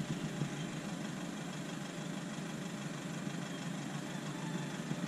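Nissan Navara pickup's engine idling steadily.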